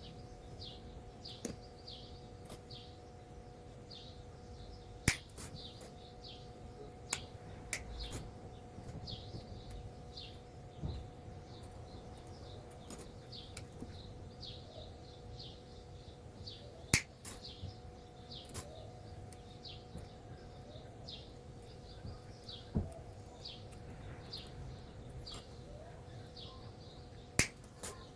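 Sharp clicks and taps every few seconds, over a background of short, high chirps repeating about once or twice a second, like birdsong, and a faint steady hum.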